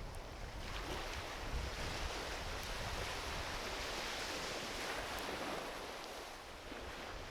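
Small ocean waves washing onto a beach in slow swells, with a few faint crackles from a driftwood campfire.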